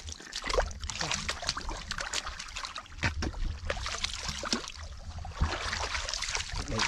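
Shallow muddy water splashing and sloshing irregularly as hands grope through it and a person wades.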